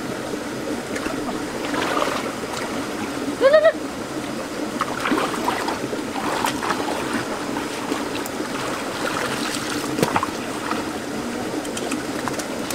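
Water splashing and trickling, with many small irregular splashes, and a short rising vocal call about three and a half seconds in.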